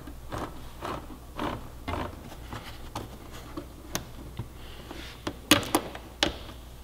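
Light clicks and taps of plastic trim clips and trim panel being worked loose on a motorcycle, about two a second, with a few sharper, louder clicks near the end.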